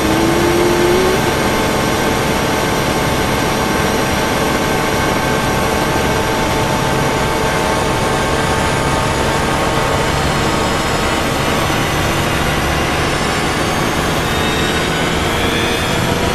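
Loud steady mechanical noise with several steady whining tones running through it, of the kind an engine makes, with a short rising tone in about the first second.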